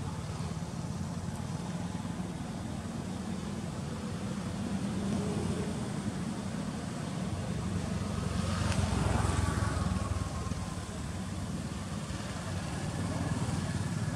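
Steady low rumble of motor traffic, swelling as a vehicle passes about eight to ten seconds in and then falling away.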